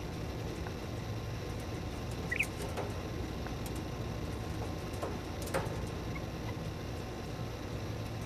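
Quail pecking in a wire cage: a few scattered sharp taps and clicks, the loudest about two and a half seconds in, joined there by one short, soft, high chirp, over a steady low hum.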